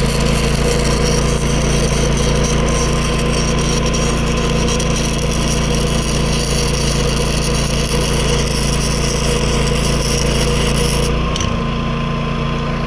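Electric welding arc from an inverter welder crackling and hissing steadily, over the Predator 11,500-watt inverter generator's engine running under the welder's load. About two seconds before the end the arc breaks off and the crackle stops, leaving the generator running.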